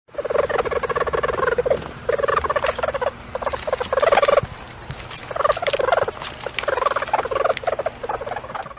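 Stoat (Mustela erminea) giving a rapid pulsed chatter in about five bouts, the loudest about four seconds in.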